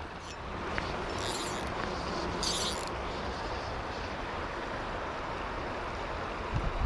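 Steady rush of flowing river water, with two brief high-pitched hisses about a second apart near the start.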